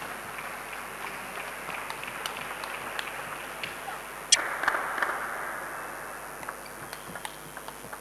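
Table tennis rally: a celluloid ball clicking off bats and table at irregular intervals over a steady crowd murmur. About four seconds in, one sharp, loud hit is followed by a burst of crowd applause that fades over a couple of seconds.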